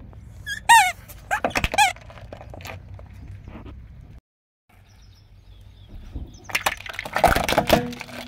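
Rubber squeaky toys squeezed flat under a slowly rolling car tyre, giving a few short, bending squeaks about a second in. Near the end, hard plastic toys crack and crunch under the tyre in a quick cluster of snaps.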